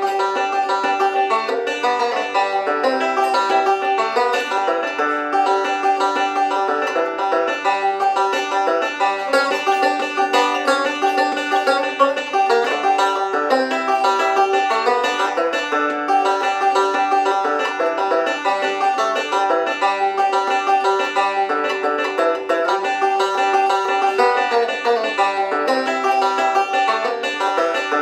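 Hatfield Walnut Special resonator banjo, with walnut neck and walnut resonator, picked continuously in a quick, unbroken run of notes. Its owner calls its tone very loud, very dry and punchy.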